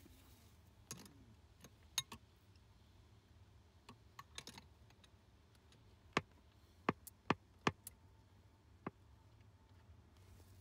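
Adjustable wrench clicking against a brass fitting on a sprinkler backflow-prevention manifold as the fitting is loosened: sharp metal clicks at irregular intervals, several close together past the middle.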